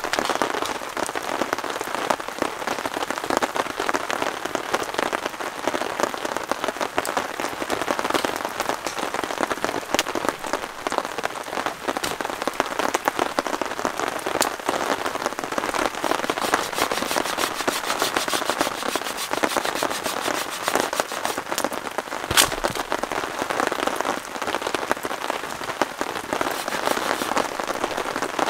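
Rain falling on a tarp shelter overhead, a dense, steady patter of drops. About three-quarters of the way through there is one sharper knock.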